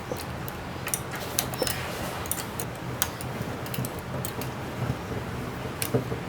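Scattered metallic clicks and clinks of hand tools and bolts as the treadmill's rear roller bolts are started in the frame, over a steady low hum.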